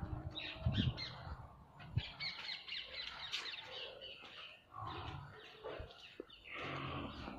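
Pigs grunting and squealing, an irregular jumble of overlapping calls.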